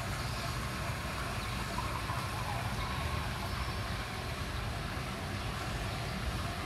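Steady outdoor background noise: a low rumble with a hiss above it, and no distinct event standing out.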